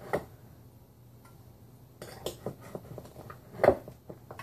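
Measuring cup scooping sugar from a glass jar and tipping it into a metal measuring cup: scattered clicks and knocks of cup against glass and metal. The loudest knock comes about three and a half seconds in.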